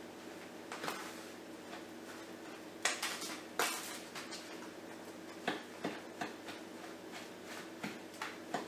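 A spoon scraping and knocking against the sides of a bowl while stirring a thick brown sugar, breadcrumb and butter filling: irregular short scrapes and taps, the loudest a few seconds in.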